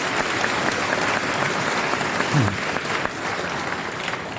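Audience applauding steadily in a large hall, easing off slightly near the end.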